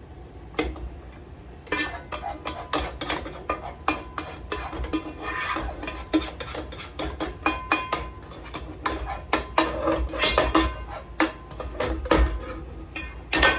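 A cooking utensil repeatedly scraping and clinking against a pot and pan as thick gravy is scraped out and poured over the chops, with short rings from the metal cookware.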